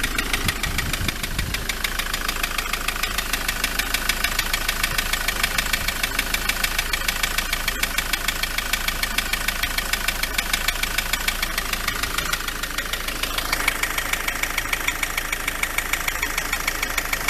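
Ford Transit Mk7 2.4 diesel engine idling with the bonnet open, with a loud, fast, regular knocking through the idle. The owner suspects a failing dual-mass flywheel. The sound changes character about 13 seconds in.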